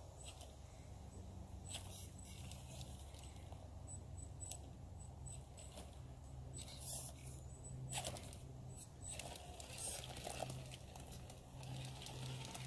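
Radio-controlled scale crawler truck inching up a fallen tree trunk: a low, faint electric drivetrain hum that swells and eases with the throttle, with scattered small clicks and crackles as the tyres grip and scrape the bark.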